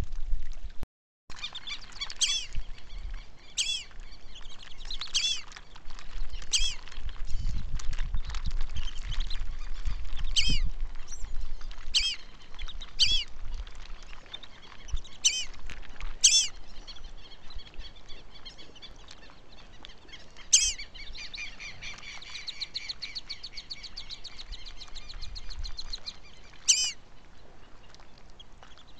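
Black-bellied whistling ducks calling: single high whistles that rise and fall, repeated every second or so, with a denser stretch of calling later on.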